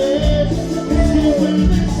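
A live band playing Latin American dance music, with a steady beat under a sustained melodic line.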